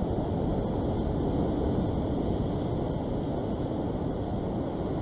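Steady low rumble of wind on the microphone, mixed with the wash of surf on a rock shelf.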